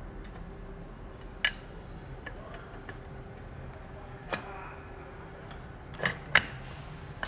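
A few short sharp clicks and knocks, the loudest two close together near the end, as the back plate of a Jarvis BN003 air balancer is pushed back onto its rods.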